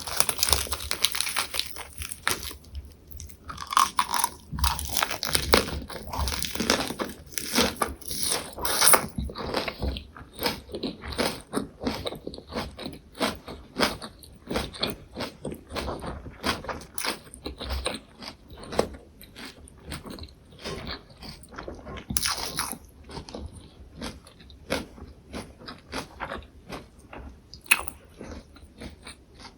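Close-miked biting and chewing of a lettuce and perilla-leaf wrap filled with tofu and gochujang: crisp crunching of the fresh leaves, loudest over the first ten seconds, then settling into quick, steady chewing.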